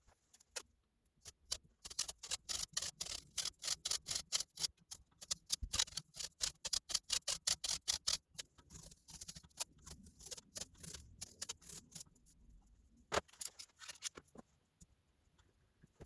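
A rapid series of sharp mechanical clicks, several a second, thinning out after about twelve seconds, with one louder click a little later.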